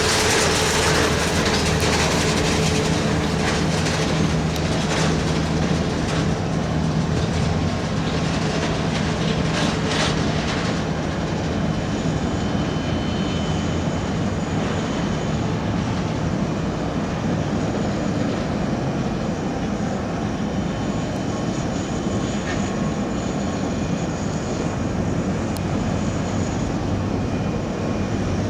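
Steady jet noise from a Boeing 787-8 Dreamliner during pushback. A loud high hiss eases off over the first ten seconds or so, leaving a steady rumble with a faint held hum.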